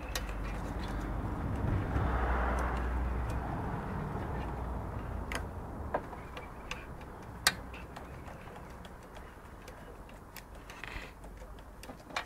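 Tools and parts handled at the front of a VW 1.9 diesel engine: a few scattered sharp metal clicks and knocks over a low steady rumble, with a stretch of rubbing and rustling about two seconds in as the timing-belt area is worked on.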